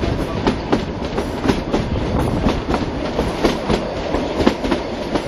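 Narrow-gauge passenger train running, its wheels clattering over the rail joints in a steady run of about four clicks a second.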